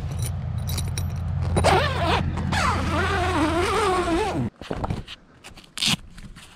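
Zipper on a truck roof-rack awning's vinyl cover being pulled open in long drags, a rasping buzz whose pitch wavers with the pulling speed, over a low rumble that cuts out about two-thirds of the way through. One short, sharp zip comes near the end.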